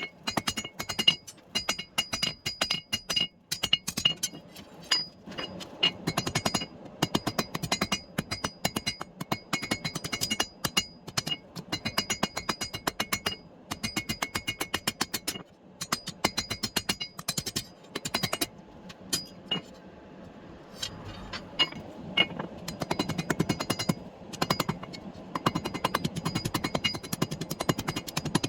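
Hand hammer striking hot steel on an anvil in rapid, repeated blows, about three to four a second, with the anvil ringing between blows. The ringing fades for a few seconds past the middle while the hammering goes on.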